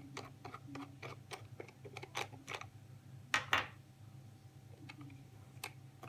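Small hard-plastic clicks and ticks from a GoPro Hero 8 Black and its plastic buckle mount being handled and pulled free of the box's display holder. The clicks come quickly through the first three seconds, with two louder ones about halfway, then only one or two more, over a low steady hum.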